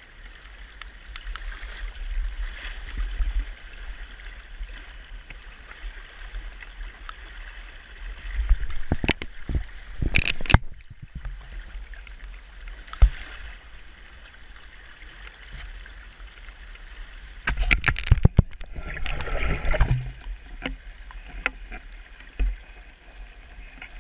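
Steady rush of a fast-flowing river, with two stretches of close splashing and knocking against the microphone, the first a little under halfway in and the second about three-quarters through.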